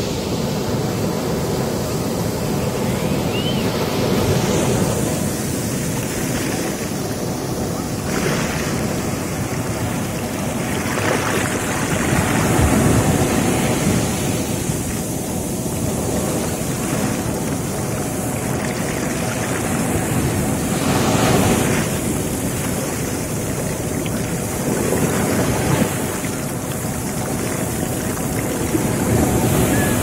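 Ocean surf: waves breaking and washing up the beach close by, swelling louder every few seconds as each wave comes in.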